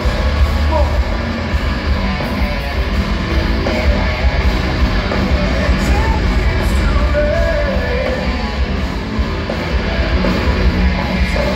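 Heavy metal band playing live: distorted electric guitars, bass and drums under a singer's voice, in a loud, dense amplified mix heard from the audience.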